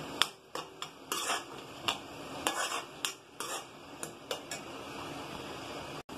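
Perforated steel spoon scraping and clinking against the inside of a metal kadai, about a dozen strokes, as a thick onion-tomato masala is stirred while it fries, over a steady sizzle. The stirring stops about four and a half seconds in, leaving the sizzle.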